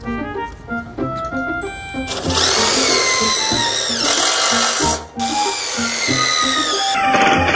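Cordless drill driving self-drilling screws through a galvanized steel bracket into a steel square tube. Its motor whine rises as it spins up about two seconds in, cuts out briefly about five seconds in, then resumes. Background music plays throughout.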